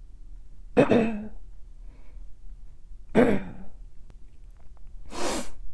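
A person clearing their throat twice, each a short voiced rasp falling in pitch, then a breathy exhale near the end, as a singer readying the voice before singing.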